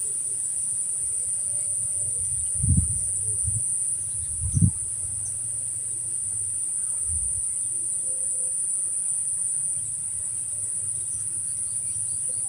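Steady, high-pitched trill of insects, unbroken throughout, with two or three dull low bumps about three and four and a half seconds in.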